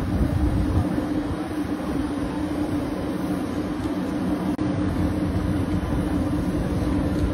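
Steady machine hum with a constant low tone from the parked Airbus BelugaST and its ground equipment while the aircraft's upper nose cargo door opens. There is a brief dropout about halfway through.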